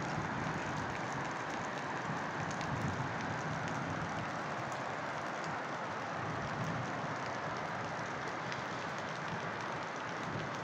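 Steady rain falling on trees and roofs, an even hiss with scattered faint drop ticks.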